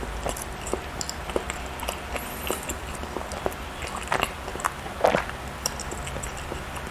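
Close-miked mouth sounds of someone chewing soft cake or bread: a run of small wet clicks and smacks, with a louder burst of smacking about four to five seconds in.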